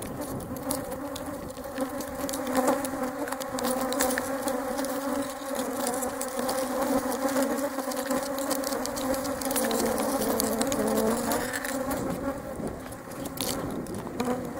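Many honeybees flying close around the microphone: a steady buzzing hum that wavers slightly in pitch and thins out near the end, with sharp ticks scattered through it.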